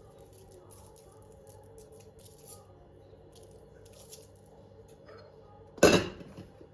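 Kitchen handling sounds: light clicks and rustles, then one loud clatter near the end, like a dish or utensil knocked or set down on a hard surface.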